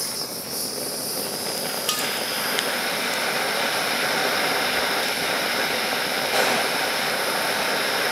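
Mini blowtorch flame hissing steadily on a pile of small electrolytic capacitors. It grows a little louder about two seconds in, with a few faint ticks.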